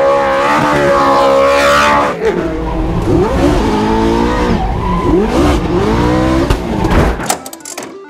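Ferrari V8 in a drifting Toyota GT86, revving high with its pitch swinging up and down as the rear tyres spin and squeal, over a steady rush of tyre noise. The sound fades out near the end.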